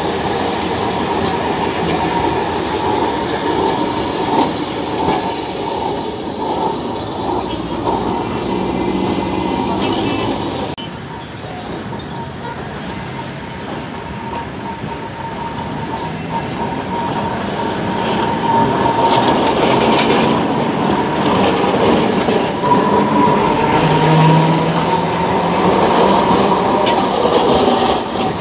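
Alexandria street tram passing close by, its wheels rumbling and clattering over the rails with a steady thin tone over the noise. The sound drops about a third of the way in and grows louder again near the end as another tram passes close.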